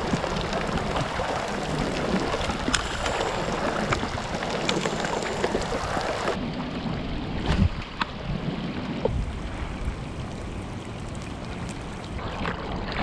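Kayak paddle strokes splashing through choppy lake water, with wind buffeting the microphone and a knock just past halfway.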